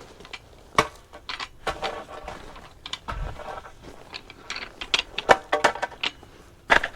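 Loose drainage gravel crunching and clicking in a quick, irregular series of small knocks and rattles.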